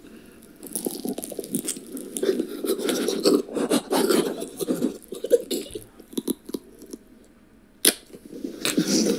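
Close-miked chewing and crunching of food into an ASMR microphone: a dense run of small wet clicks and crunches that stops about six and a half seconds in, then one sharp click near the end.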